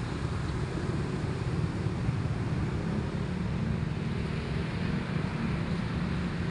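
Steady engine rumble and wind on the microphone from riding along on a small motorcycle.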